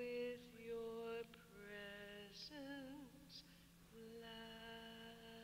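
Soft, slow hymn singing with long held notes, one of them wavering and gliding in pitch about halfway through, over a faint steady hum.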